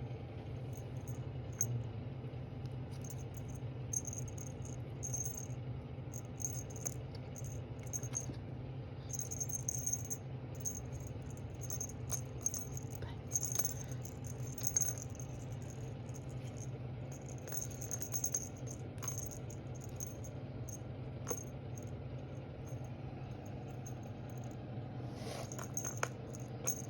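Small bell jingling in short, irregular bursts, over a steady low hum.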